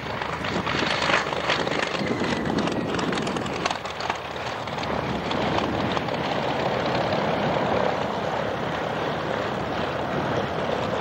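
Messerschmitt Bf 109G's Daimler-Benz inverted V12 engine and propeller running steadily as the fighter lands, with gear down, and rolls out on the grass.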